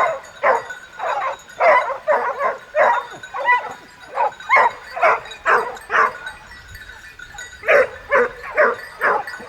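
Hunting dogs barking and baying in a rapid run of short calls, about two a second, with a brief pause about two-thirds of the way through: hounds giving tongue as they chase a wild boar.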